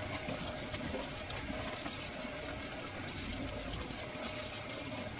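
Kitchen faucet running into the sink as taro leaves are rinsed under it, a steady splashing rush of water.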